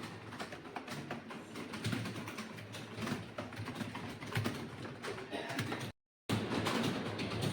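Fast typing on a computer keyboard: a dense, uneven stream of key clicks. The sound cuts out completely for a moment about six seconds in and comes back louder.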